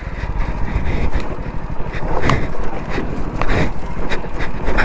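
Hero Splendor motorcycle's single-cylinder engine running at low speed as the bike crawls over a rough, stony track. Scattered rattles and knocks come from the bike jolting over the stones.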